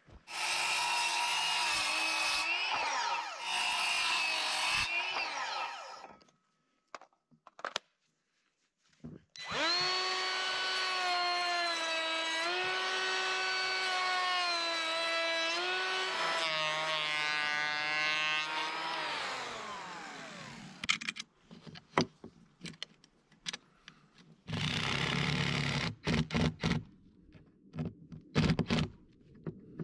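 Cordless circular saw running and cutting a board: a whine of about five seconds, then a longer cut of about ten seconds that winds down with a falling whine when released. Near the end a cordless drill runs briefly, driving a screw.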